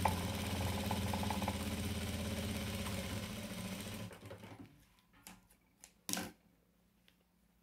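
Sewing machine running at a steady speed, stitching the lining into a small fabric purse, then slowing and stopping about four seconds in. A few light clicks and one short, louder scrape follow about six seconds in.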